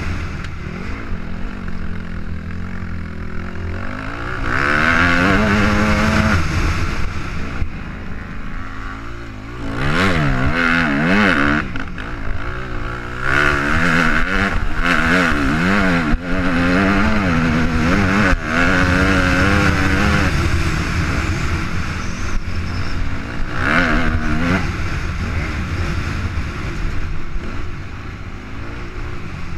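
Motocross bike engine revving hard and dropping back again and again as the rider accelerates, shifts and slows around a dirt track, heard from a helmet camera with wind rushing over the microphone.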